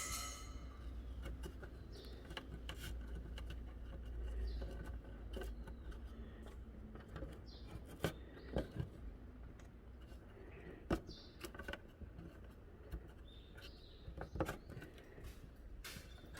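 Scattered light clicks and taps at irregular intervals, the clearest about eight seconds in and near the end, over a faint low hum that fades about four seconds in.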